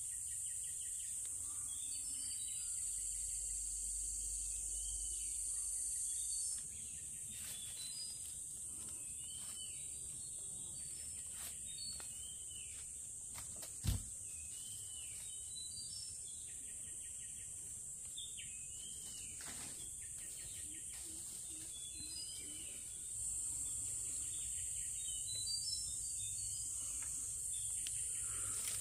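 Steady high-pitched insect chorus with scattered short bird chirps, and a single sharp click about halfway through.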